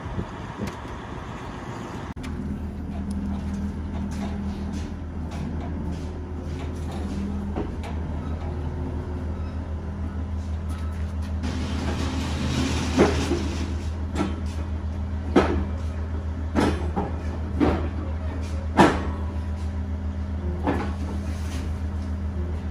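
Diesel engine of a compact track loader idling steadily, with a short hiss about halfway through and then several sharp metal clanks a second or two apart.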